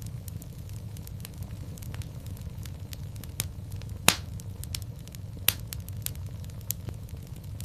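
Fire in a fireplace crackling over a steady low rumble, with scattered small pops. Two louder sharp pops come about four and five and a half seconds in.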